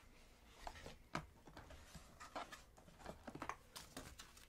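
Faint, scattered light taps and rustles of cardboard and paper packaging being handled, the loudest tap just over a second in.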